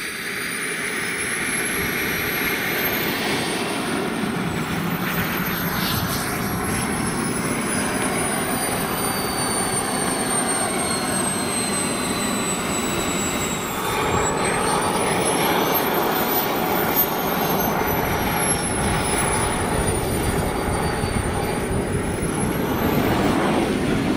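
Jetsmunt M210 model jet turbine in a 1/5-scale Rafale running on the ground while taxiing. A high whine rises and falls in pitch with the throttle over a steady rushing exhaust, growing louder over the first couple of seconds. The whine climbs sharply about 14 seconds in as the throttle is opened.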